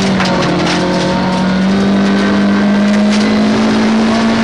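Rally car engine pulling hard under full throttle, heard from inside the cabin, its revs climbing slowly and steadily in one gear. A couple of short rattles come through from the car on the gravel road.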